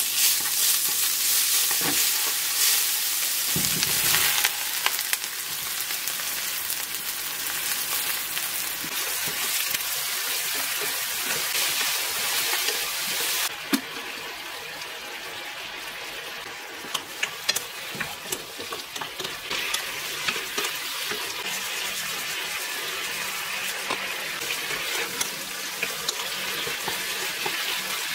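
Minced garlic, and then eggplant chunks, sizzling in oil in a nonstick wok as they are stir-fried with a wooden spoon. The sizzle drops a little about halfway through, and a few light clicks of the spoon against the pan come in the second half.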